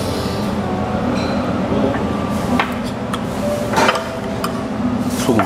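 Metal spoons clinking against heavy soup pots as oxtail soup broth is scooped and tasted, a few sharp clinks over a steady background hum.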